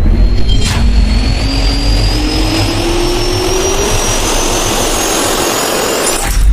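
Loud engine noise with a whine that rises steadily in pitch over about four seconds, cutting off suddenly near the end.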